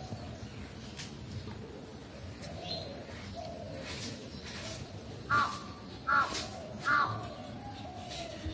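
A crow cawing three times, a little under a second apart, starting about five seconds in.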